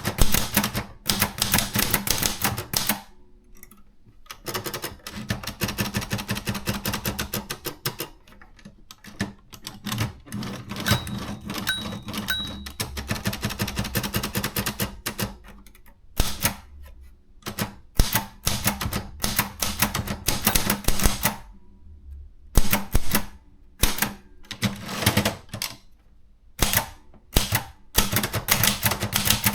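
Contessa 2 de luxe portable manual typewriter being typed on: quick runs of sharp key and typebar strikes, broken by several short pauses.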